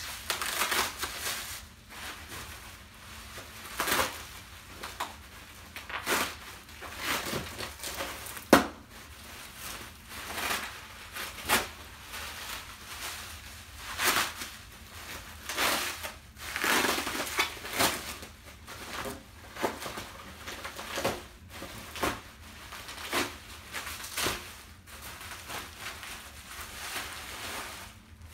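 Seat packaging being unwrapped by hand: plastic wrap and bubble wrap crinkling and crumpling, and packing tape being cut and pulled away, in irregular rustling bursts with a few sharp clicks, the loudest about eight seconds in.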